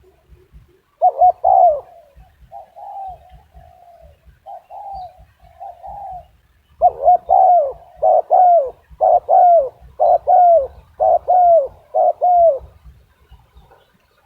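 A dove cooing in a small, high voice. A short burst of coos comes about a second in and softer notes follow, then a run of about eleven quick, evenly spaced coos from about halfway.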